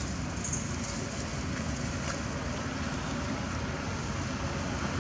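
Steady outdoor background noise, an even hiss and rumble with no distinct calls or knocks.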